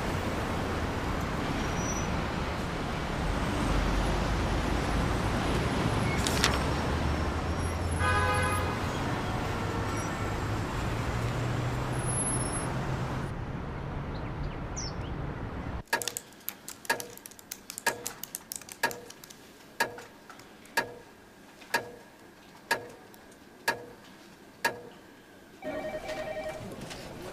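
Steady city street traffic noise with a brief high tone about eight seconds in. It cuts off suddenly about sixteen seconds in, leaving sharp ticks about once a second in a quiet room, and a telephone starts ringing near the end.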